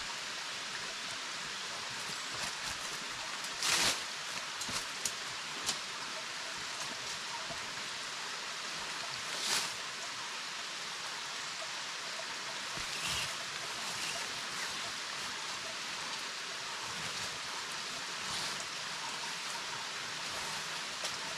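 Steady rush of a shallow stream running over rocks with a small waterfall. A few brief rustles and clicks break in, the loudest about four seconds in, as the tent's poles and fabric are handled.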